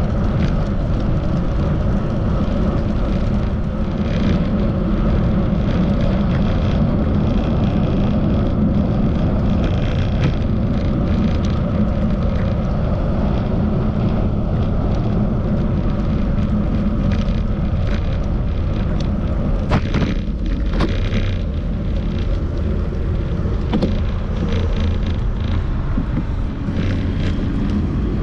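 Steady rumble of wind on the microphone with the running noise of a bicycle being ridden on a street, and a couple of sharp knocks about twenty seconds in.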